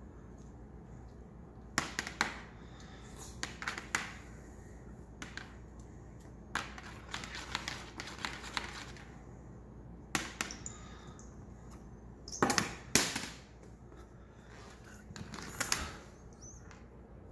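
Irregular taps, scuffs and short rustles as a small furry toy on a string is swung and batted against a hardwood floor by a cat. The loudest stretch is a cluster of them about twelve and a half to thirteen seconds in.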